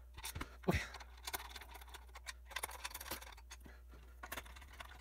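Light, irregular clicks and taps of plastic parts being handled and pressed together as a Simpson 270 analog multimeter's case and inner panel are reassembled, with one louder tap about three quarters of a second in.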